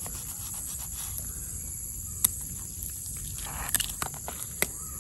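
Kitchen knife cutting along a fish's slit belly on a wooden chopping block: a few sharp taps of the blade on the wood and a brief scrape, over a steady high buzz of crickets.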